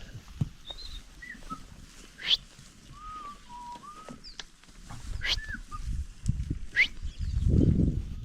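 Farmyard sounds: short bird chirps and whistled glides, scattered clicks and knocks, and a low rumble that builds in the last few seconds.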